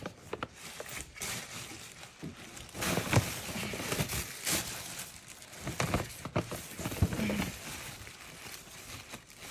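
Tissue paper and a paper gift bag rustling and crinkling as hands dig through the bag, with irregular louder crackles.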